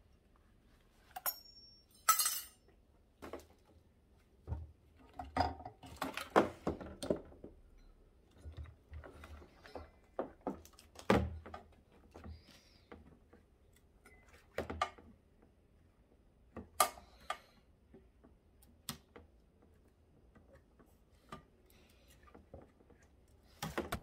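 Irregular clinks, clicks and knocks of pliers and cutters at work on a top-loading washing machine's motor, metal base plate and wiring as it is dismantled for scrap. There is a busy run of strikes a few seconds in and single sharp ones later.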